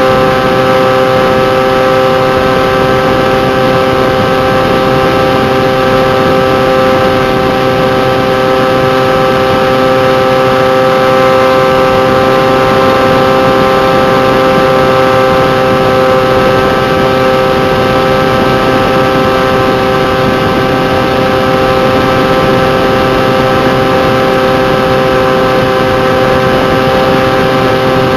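Electric motor and propeller of a Bixler RC foam plane, picked up by a camera on its wing: a steady whine held at one pitch over a constant rush of noise, the motor at an even throttle in flight.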